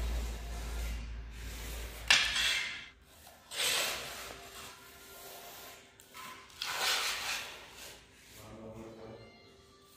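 Strips of stone tile being slid and set down by hand on a wooden board: a few separate scraping rubs and knocks, the sharpest about two seconds in. A low hum stops about two and a half seconds in.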